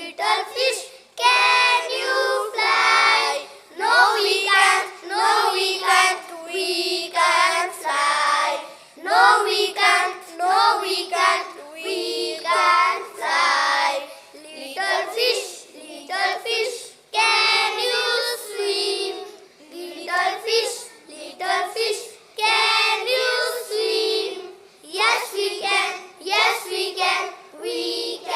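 A group of young children reciting a rhyme together in unison, phrase by phrase with short breaks between lines.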